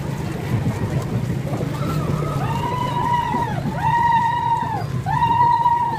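Street procession noise: a steady low rumble of traffic and crowd. From about two seconds in come three or four long high-pitched calls, each rising, held, then falling away.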